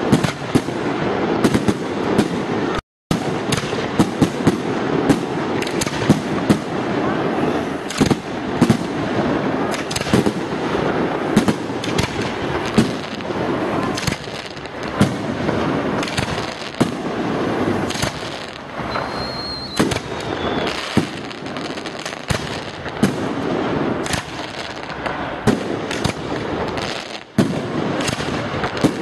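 Aerial fireworks display: a rapid, unbroken series of shell bursts and sharp bangs over dense crackling. The sound drops out for a moment about three seconds in, and a short high whistle is heard about two-thirds of the way through.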